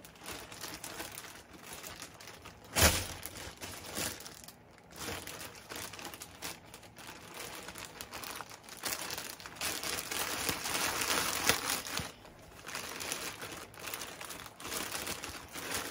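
Plastic mailer bag crinkling and rustling as it is pulled and torn open by hand, with one sudden loud crack about three seconds in and busier crinkling later on.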